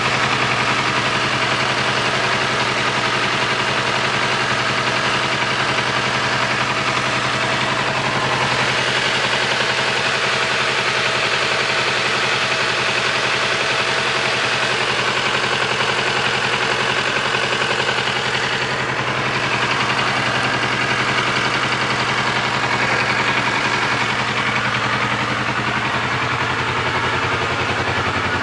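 Vehicle engine idling steadily, making a noise its owner finds strange; a faint steady whine sounds over it for several seconds in the middle.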